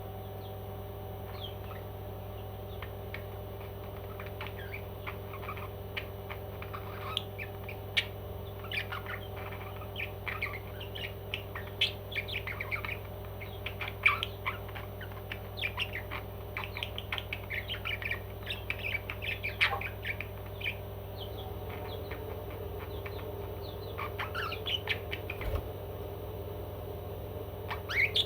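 Pet parrot chirping and squawking in rapid runs of short calls, busiest through the middle and again near the end, over a steady low hum.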